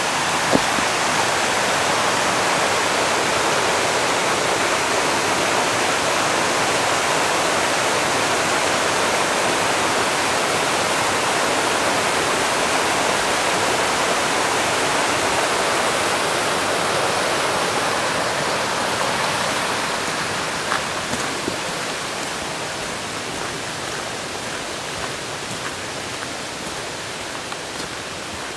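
Rocky forest stream rushing over stones after a night of rain: a steady, loud wash of water that grows fainter over the last ten seconds.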